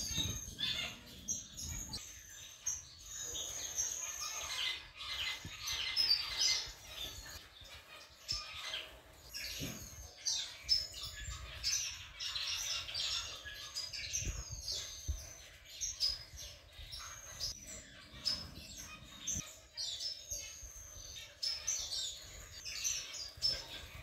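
Red-faced and sea green parrot finches calling together: a busy, continuous run of short high-pitched chirps mixed with brief thin whistles.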